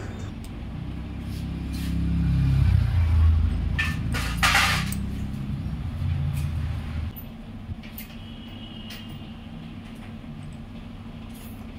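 A motor vehicle's engine passing by, louder about two to five seconds in and fading out about seven seconds in. Light clicks and clinks are scattered through, with a short rattle around four to five seconds in.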